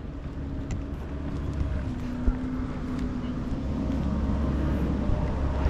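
A steady low rumble with a faint humming tone, growing slowly louder, and one short knock a little after two seconds in.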